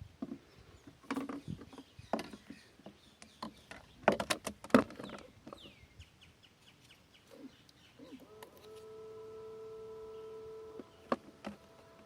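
Several sharp clicks and knocks, then a small 12 V JT-600 DC water pump runs with a steady hum for about two and a half seconds and cuts off. The pump is noisy but not drawing any water.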